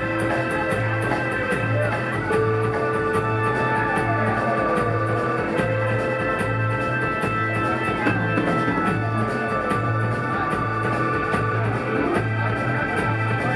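Live rock band playing an instrumental jam: a bass note pulses on an even beat under held guitar and keyboard tones, with several sliding, falling guitar lines.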